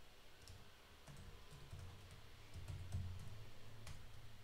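Computer keyboard typing: faint, scattered keystroke clicks at an uneven pace, over a low hum.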